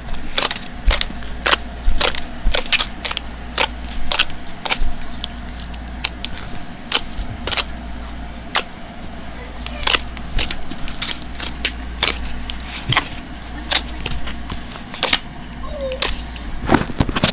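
Homemade slime being kneaded and poked by hand, giving irregular sharp clicks and pops of trapped air, at times several a second, over a steady low hum.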